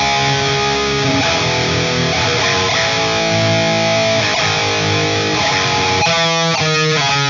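Distorted electric guitar playing a melodic death metal part, mostly held, ringing chords, breaking into a choppy stop-start rhythm about six seconds in.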